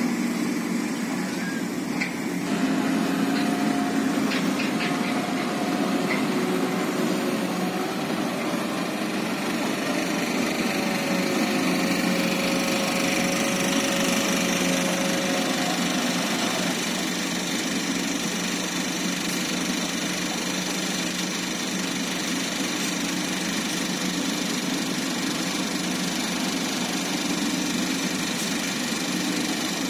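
Mitsubishi Fuso dump truck's diesel engine running steadily while its tipper bed is raised to unload coal.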